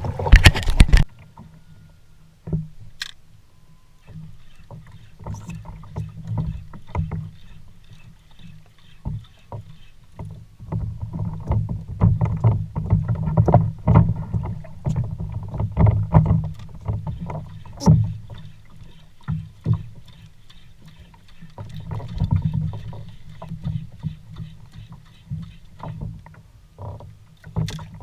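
Water sloshing against a fishing kayak's hull at sea, heard as an uneven low rumble that swells and fades, with scattered small knocks and clicks and a loud burst in the first second.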